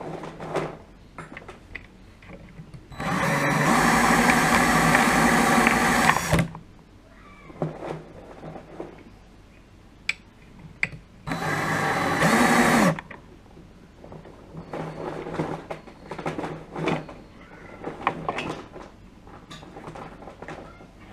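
Cordless drill spinning a benchtop wire-stripping machine in two runs: a loud one of about three seconds, then a shorter one about eleven seconds in that winds down in pitch as it stops. Between the runs come quieter clicks and rustles of the insulated wire being handled.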